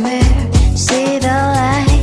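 Background pop song: a sung vocal line over a bass-heavy beat.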